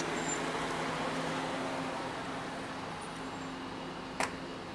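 Steady low hum of a running motor, holding several even tones over a hiss, with one sharp click about four seconds in.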